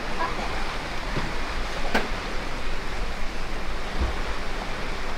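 Steady rush of wind and open sea heard from high on a cruise ship's deck, with one short click about two seconds in.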